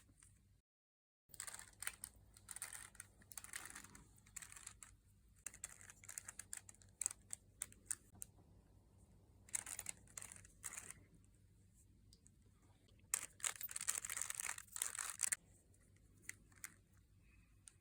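Rubik's cube being twisted: faint plastic clicks and clacks as its layers turn, scattered and irregular, with a busier spell of rapid turning about thirteen to fifteen seconds in.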